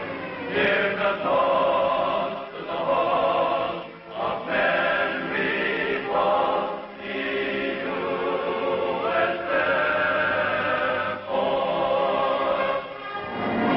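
Choir singing title music in long held phrases that break off every few seconds, with a dull, old film-soundtrack sound.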